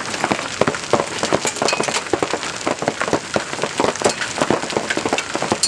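Large hailstones, about an inch across, pelting down in a dense, continuous clatter of sharp hits.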